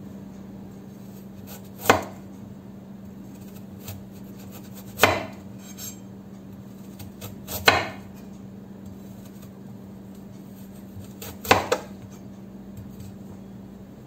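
Chef's knife slicing through peeled ginger root and knocking on a wooden cutting board: four separate sharp chops, a few seconds apart.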